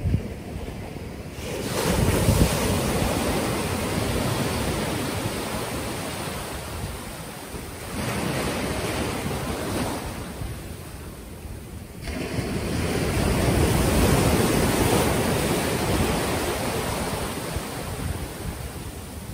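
Ocean surf washing in three long surges, each swelling and then fading over a few seconds, mixed with wind on the microphone.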